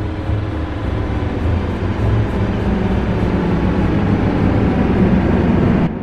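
Horror tension crescendo sound effect: a dense, deep rumbling swell that grows steadily louder and cuts off suddenly near the end.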